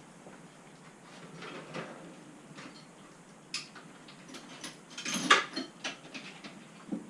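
Scattered clicks and clinks of scooter parts and tools being handled during a repair on the front suspension, with a louder clatter about five seconds in.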